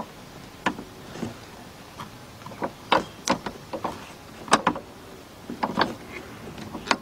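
A dozen or so irregular sharp clicks and knocks of metal parts, some in quick pairs: needle-nose pliers and the pin working against the convertible-top hydraulic piston's mount while it is being lined up.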